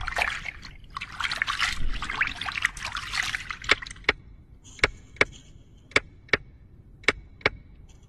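Trickling, crackling water-like sound effect for about three and a half seconds, then eight sharp drip-like pings in pairs, about one pair a second.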